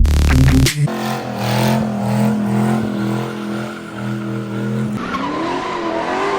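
Drift car at speed: the engine is held at steady high revs over tyre squeal, and about five seconds in the revs start to rise and fall. A loud burst comes in the first moment.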